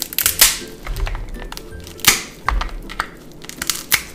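King crab leg shell cracking under a metal crab-cracking tool. There are several sharp cracks and snaps, the loudest about half a second in and about two seconds in, over background music.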